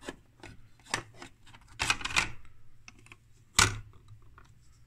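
Hard plastic clicks and knocks as the two halves of a black plastic controller enclosure are pulled apart and the lid lifted off, a handful of separate knocks with the loudest about three and a half seconds in.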